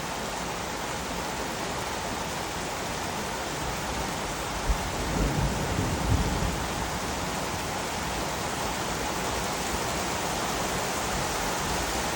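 Heavy rain falling steadily, with a brief low rumble about halfway through.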